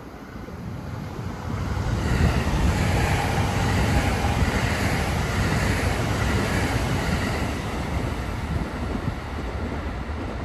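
Rumble of a train running past out of sight, with wheel-on-rail noise. It swells about two seconds in and then slowly eases off.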